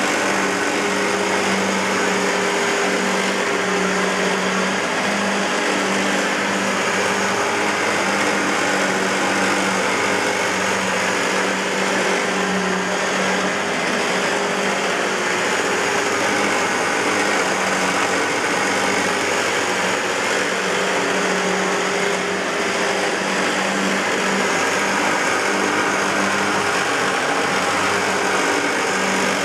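Hoover WindTunnel self-propelled bagless upright vacuum cleaner running steadily, a constant noise with a steady low hum and no change in speed.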